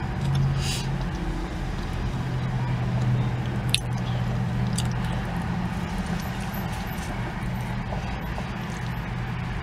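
A person biting into and chewing a steakburger close to the microphone, with a few short sharp clicks a few seconds in, over a steady low hum inside the car cabin.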